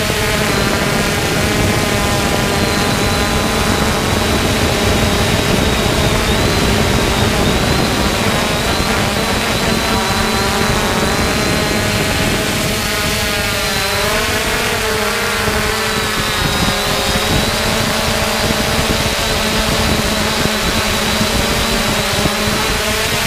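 3DR Solo quadcopter's electric motors and propellers whirring steadily, their pitch sliding up and down as the throttle changes, with a thin high whine held throughout.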